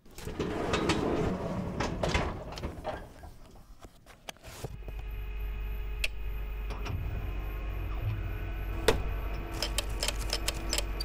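A metal microfilm cabinet drawer being pulled open, rattling and clunking. About four and a half seconds in, a microfilm reader starts a steady motor hum, with scattered clicks from its controls and film transport.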